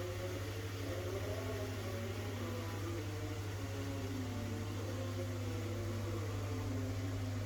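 Steady low hum, with fainter tones above it that slowly waver in pitch.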